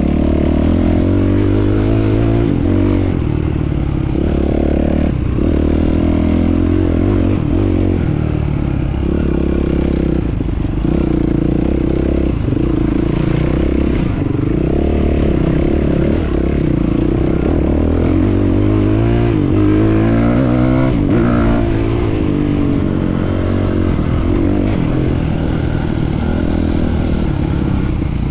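Enduro motorcycle engine running as the bike is ridden off-road, its pitch rising and falling with the throttle.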